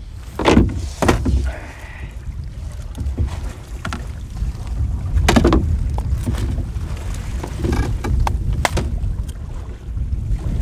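Wind buffeting the microphone in a steady low rumble aboard a canoe on a choppy lake, with a few short knocks, two near the start and three more in the second half.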